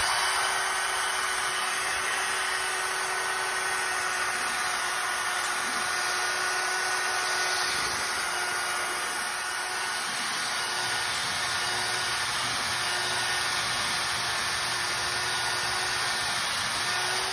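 Corded electric drill spinning a wire wheel brush against the rusted steel top of a Blackstone griddle, scrubbing the rust down to bare metal. A steady motor whine runs over a scratchy, hissing brushing sound.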